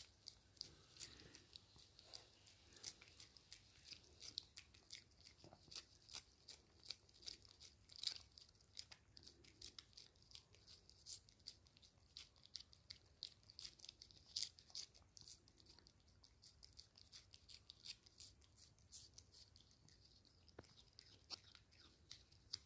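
Domestic cat licking a paste treat from a squeezed sachet: quiet, wet tongue clicks, a few a second, irregular.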